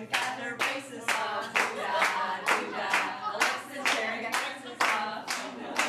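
People clapping together in a steady rhythm, about two claps a second, with voices over the claps.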